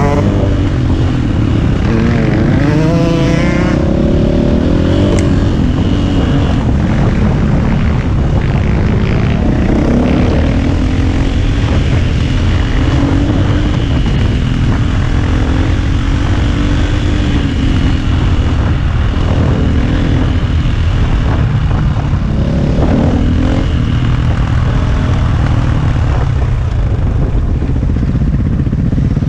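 KTM EXC450 single-cylinder four-stroke enduro motorcycle engine being ridden, its pitch rising and falling as the throttle is worked, with a sharp rev-up a couple of seconds in.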